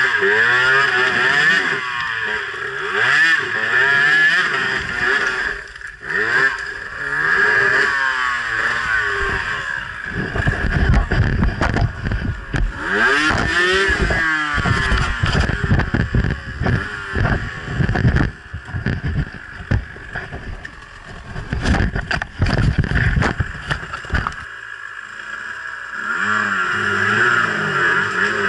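Enduro dirt bike engine revving up and down again and again as it is worked up a steep, rutted climb. Through the middle it drops to a rough, uneven low-revving chug between throttle bursts. It eases off briefly near the end, then revs again.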